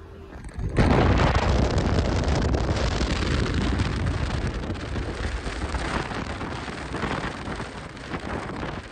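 Wind buffeting the microphone from a moving car's open window: a loud rushing noise that starts suddenly about a second in and eases a little toward the end.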